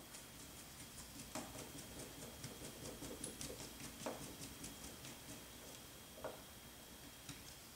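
Small hex screwdriver turning screws into a carbon-fibre RC helicopter frame: a run of faint light clicks, about four a second, that stops near the end, with three louder knocks of parts against the frame.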